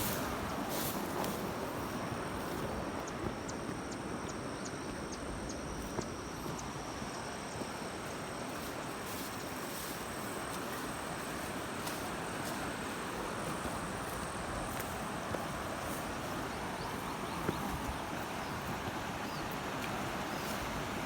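Steady rush of flowing river water, with a few faint clicks and a thin high whine through much of it.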